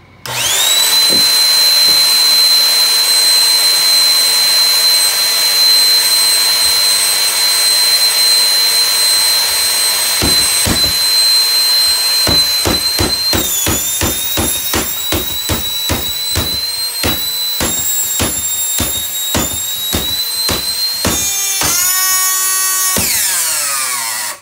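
Bissell Easy Vac corded stick vacuum's motor switched on and running with a high whine. From about ten seconds in, hammer blows strike it, about two a second, and the motor's pitch dips and wavers. Near the end the motor winds down with a falling whine and stops, having died under the blows.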